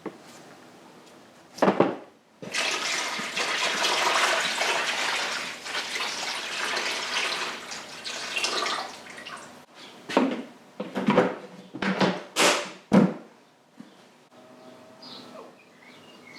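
Liquid pouring steadily into a container for about seven seconds, then several short knocks and clunks.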